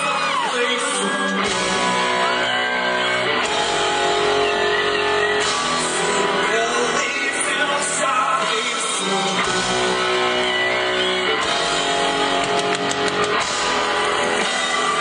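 A male singer singing a song live with a backing band, his voice over keyboards and drums.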